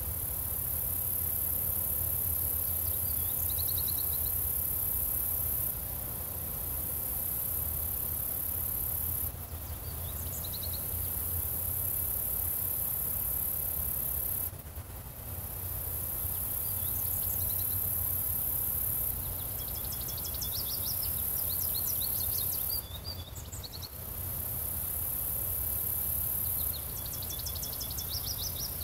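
Insects, crickets among them, trilling in a very high, steady buzz that runs for several seconds at a time with short breaks. A bird calls several times in short bursts of rapid notes, over a low rumble of breeze.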